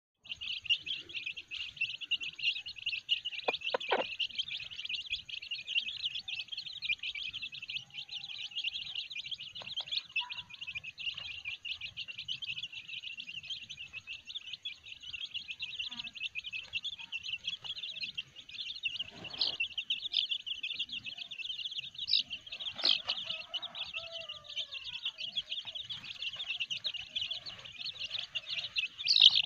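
A brood of young free-range village chicks peeping continuously in a dense, high-pitched chorus, with a few short lower calls now and then.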